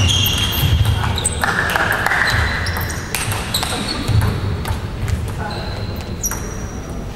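Table tennis rally: the ball clicking sharply off the bats and the table, many quick hits with short ringing pings, over the murmur of voices in a large hall.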